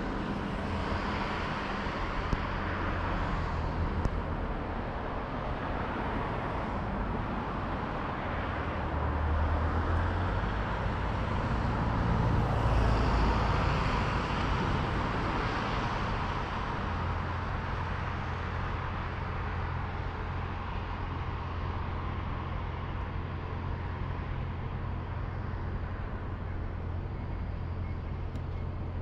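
Road traffic: a steady hum of cars going by, swelling as a vehicle passes close about ten to fifteen seconds in.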